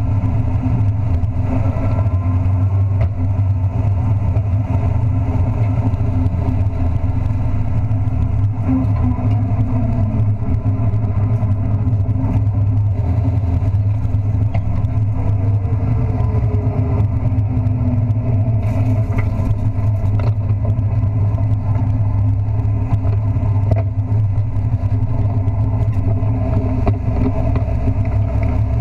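Race truck's engine running steadily at speed, heard from inside the roll-caged cab: a loud, unbroken drone.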